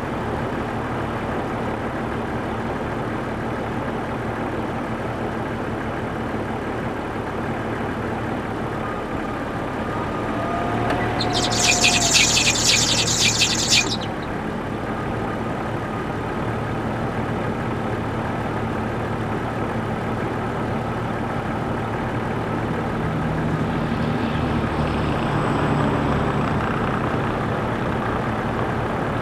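Truck engine idling steadily with the lights, heater, wipers and radio switched on as an electrical load. About eleven seconds in comes a high-pitched squeal, rapidly pulsing, lasting about three seconds, which the owner takes for a drive belt that needs replacing.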